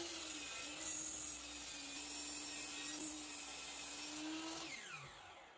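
Sliding compound miter saw running and cutting a mitre through a wooden board, a steady motor whine. Near the end the trigger is released and the motor winds down with a falling pitch.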